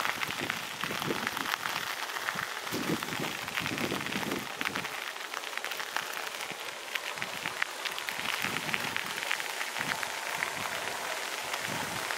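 Outdoor wind noise: uneven low buffets on the microphone over a steady crackling rustle.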